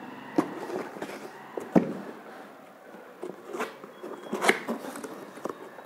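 Cardboard box being handled and opened: a few knocks and thumps against it, the loudest a little under two seconds in, then brief scraping and rustling of the cardboard in the second half.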